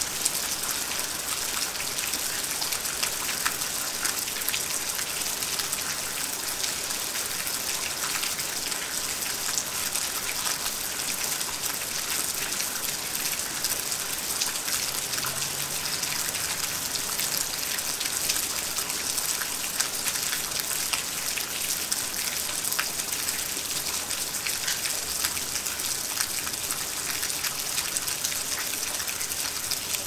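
Steady rain falling: a dense, even hiss with scattered sharp ticks of individual drops striking a surface.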